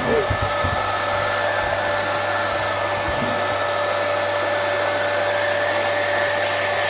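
Vacuum cleaner motor running steadily, a constant whine over rushing air, with a few low bumps in the first second or so.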